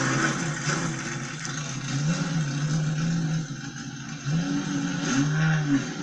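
A drifting car's engine revving up and down repeatedly as the throttle is worked, over a steady hiss. The pitch climbs, holds and drops several times, the last rise and fall about five seconds in.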